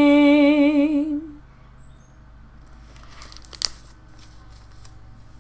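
A woman's voice holds the last sung note with vibrato and fades out about a second in. Then a hardcover picture book is handled and closed: light paper rustling and one sharp tap about three and a half seconds in.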